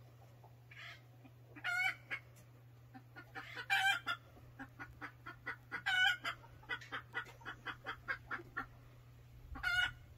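Chickens clucking in quick runs of short notes, broken by four louder pitched calls spaced a few seconds apart.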